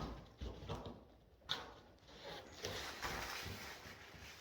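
Carpet tiles being handled and set down: a thump, a few light knocks and a click, then a soft steady rustling from about three seconds in.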